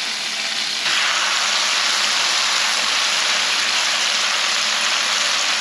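Salmon belly pieces frying in teriyaki sauce in a cast-iron skillet, a steady sizzle that gets louder about a second in.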